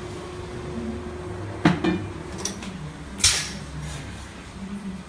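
Tyre being mounted onto a wheel on a garage tyre changer. A steady hum cuts off at a sharp metal clank about one and a half seconds in, followed by a few lighter clicks and a short noisy burst about three seconds in.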